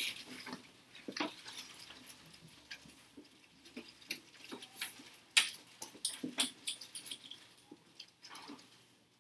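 Scattered short clicks, taps and scratchy rustles, irregular and unevenly loud, with the sharpest tap about five seconds in.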